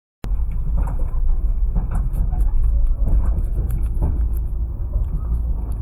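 Passenger train running: a steady heavy low rumble with irregular knocks and rattles.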